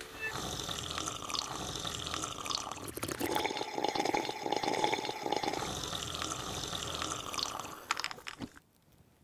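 Long, wet slurping and gurgling of tea being sipped from a glass mug, crackling and uneven, which stops abruptly about eight and a half seconds in.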